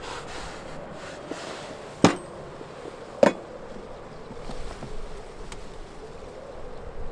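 Camp stove burning under a steel kettle with a steady buzzing hum. Two sharp knocks about two seconds in and again a second later.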